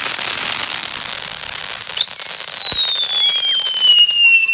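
Fireworks crackling densely. About halfway through, a whistling firework lets out one long shrill whistle that slowly falls in pitch.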